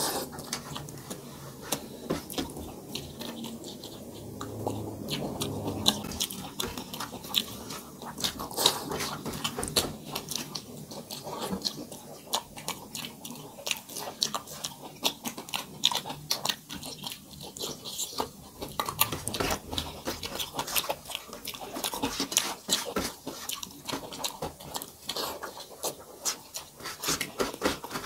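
People chewing mouthfuls of rice and dal eaten by hand, close-miked: a steady stream of short wet clicks and smacks.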